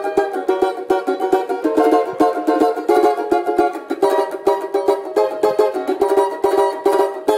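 Brazilian samba banjo (four-string banjo-cavaquinho) strummed with a pick in fast, even chord strokes as a sound demonstration; the playing stops just before the end.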